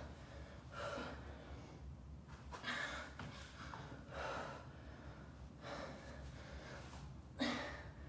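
A woman's hard breathing while doing forearm plank rotations: five faint, short breaths, about one every one and a half seconds.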